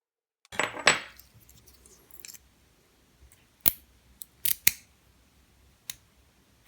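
Sharp metallic clicks and a short clatter of small steel tools and padlock parts being handled as a padlock core is worked apart: a quick cluster of clicks about half a second in, then a handful of single clicks spread over the next few seconds.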